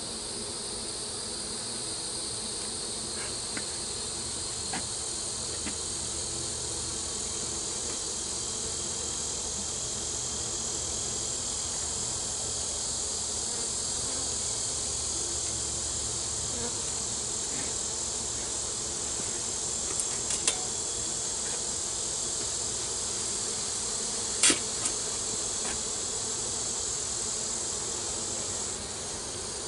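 Honey bees humming steadily around an open hive, over a steady high insect trill. A few sharp clicks about two-thirds of the way in come as the wooden hive frames are handled.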